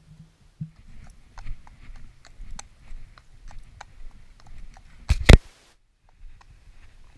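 Shod horse hooves clip-clopping on a tarmac road as the horse walks, in a run of sharp irregular clicks. About five seconds in, a loud brief knock cuts across everything and drops into a moment of silence.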